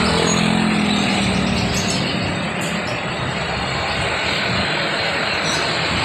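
Steady street-traffic noise from motorcycles passing, with a low engine drone in the first second and a half.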